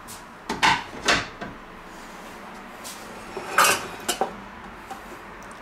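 A stainless steel saucepan with a metal spoon in it and a china plate being shifted and set down on a wooden cutting board: sharp clatters and clinks in two bunches, about a second in and again near four seconds.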